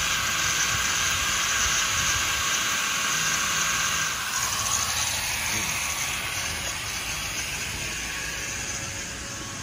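Corded angle grinder cutting into the steel of a pickup's front brake assembly, a steady high grinding hiss, taking off metal so a wire wheel will sit flush. The grinding drops away about four seconds in, leaving a fainter steady noise.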